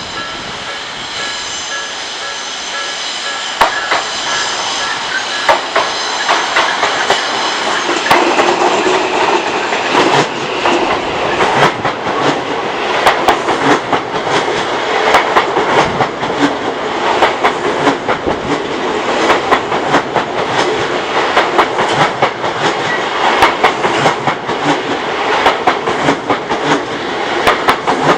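Odakyu Odawara Line electric train passing over a level crossing, its wheels clacking rapidly over the rail joints. The clacking starts about four seconds in and grows louder. A level-crossing warning bell rings at the start, then is drowned out.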